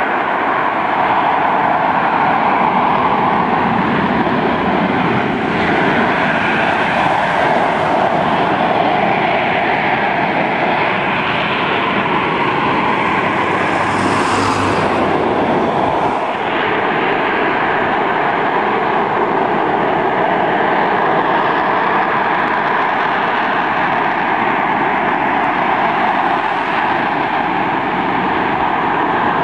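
USMC AV-8B Harrier II jump jet hovering: its Pegasus turbofan runs loud and steady as a continuous jet roar, with a brief sharper hiss about halfway through as the jet turns.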